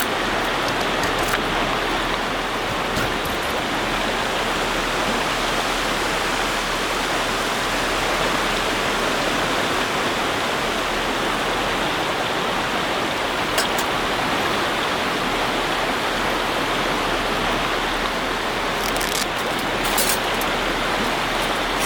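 A river swollen with high water rushes steadily, with a few brief faint clicks: one about halfway through and a cluster near the end.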